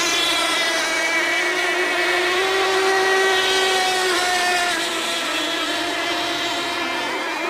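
Small two-stroke engines of radio-controlled model tunnel boats racing on a pond. A steady, high buzzing whine rises slightly in pitch and then drops about four seconds in.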